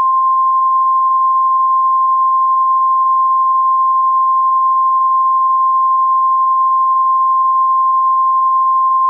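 Emergency alert attention tone: one loud, steady, single-pitched beep of about 1 kHz, the signal that an alert message follows.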